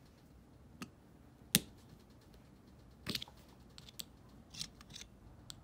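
Scattered sharp metallic clicks and taps as a pick tool works a small coil spring into place on a Honda CT70 clutch assembly. The loudest snap comes about a second and a half in, with a cluster of lighter clicks later on.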